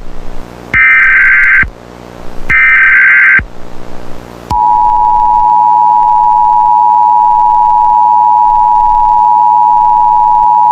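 Emergency Alert System tones: two short, harsh screeching SAME data bursts of the alert header, each just under a second and about a second apart, then about four and a half seconds in the loud, steady two-tone EAS attention signal (853 and 960 Hz) starts and holds.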